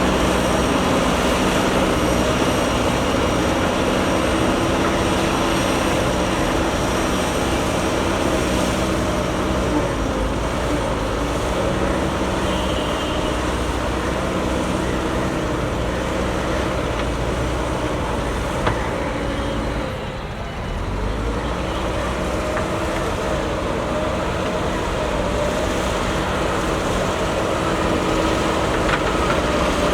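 JCB backhoe loader's diesel engine running steadily, its level dipping briefly about two-thirds of the way through before coming back up.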